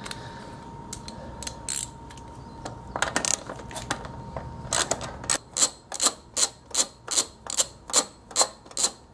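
Socket ratchet clicking as an 8 mm screw is backed out of a Briggs & Stratton 550EX engine's plastic cover: a few scattered clicks at first, then an even run of about two to three clicks a second through the second half.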